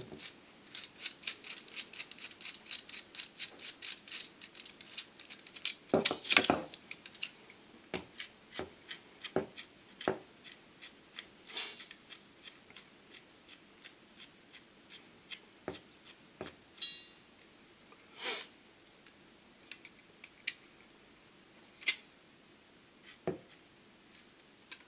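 Steel locking pliers (mole grips) being handled and adjusted: a quick run of fine metal clicks over the first few seconds, then scattered single sharp clicks as the jaws are set and clamped on a welding rod, with a brief metallic ringing squeak about two-thirds of the way through.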